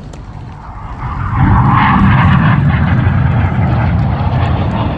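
Jet aircraft flying past at an airshow, the engine roar swelling quickly about a second in and staying loud.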